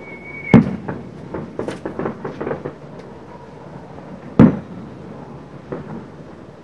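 Fireworks going off: a whistling shell, falling slightly in pitch, ends in a loud bang about half a second in, followed by a string of crackling pops. A second loud bang comes about four and a half seconds in, then a few scattered pops near the end.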